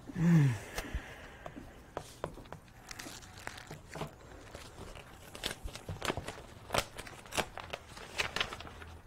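Shoemaker's handwork at a workbench: irregular small clicks, taps and crinkling of tools and leather. A short vocal sound falling in pitch comes right at the start.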